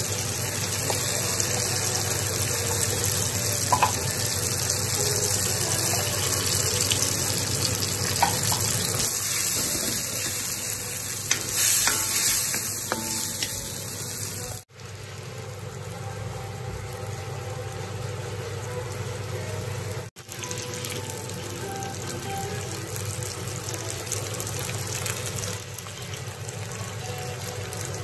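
Sardines in oil frying with tomato and shallots in a steel wok: a steady sizzle, with a wooden spatula stirring. The sizzle is louder for the first half, then breaks off abruptly twice and carries on softer.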